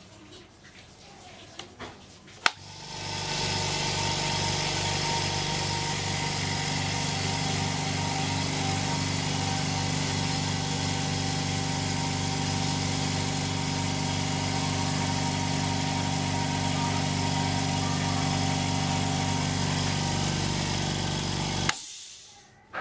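Silent-type air compressor switched on with a click a couple of seconds in, then running with a steady hum and a fast, even low pulsing. It is switched off with a click near the end and stops quickly.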